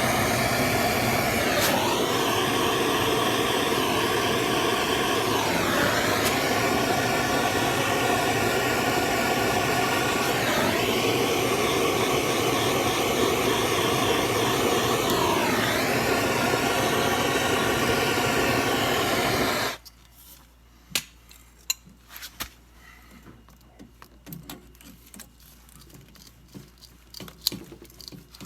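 Heat gun running steadily, its whine dipping and recovering every four or five seconds, heating a corroded threaded pipe fitting to free it; it cuts off suddenly about twenty seconds in, leaving faint clicks and handling noises.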